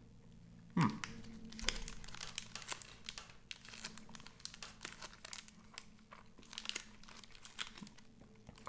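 Plastic snack wrapper being torn open and handled: a loud crackle about a second in, then irregular crinkling.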